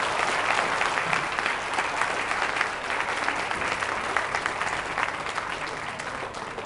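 An audience applauding: a dense patter of many hands clapping that tails off over the last couple of seconds.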